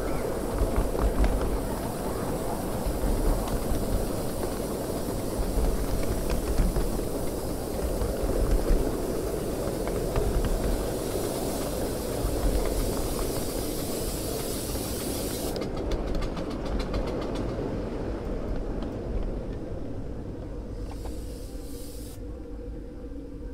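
Miniature ride-on steam locomotive running along a small-gauge track: a steady rumble of wheels on rail with a hiss over it. About fifteen seconds in the hiss cuts off, leaving the wheels clicking, and the sound slowly grows quieter.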